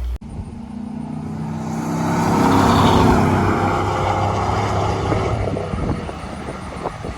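A 5.3-litre V8 truck exhaust through a single-chamber performance muffler on a run. The exhaust note builds to its loudest about three seconds in, then eases off as the engine decelerates, with scattered short pops near the end.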